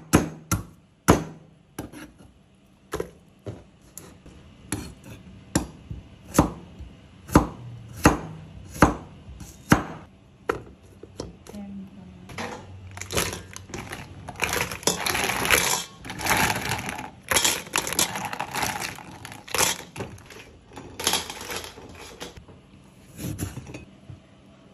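Kitchen preparation sounds: a run of sharp knocks, about one a second, then around ten seconds of dense clattering and rattling as snails in their shells are tipped into a metal pot.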